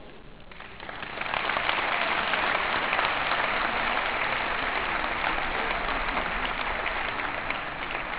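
Audience applauding after a choir song, starting about a second in and thinning out near the end.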